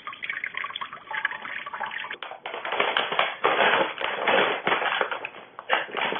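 Tap water running and splashing onto a cat's head, then the crinkling rustle of a paper bag as a cat wriggles inside it.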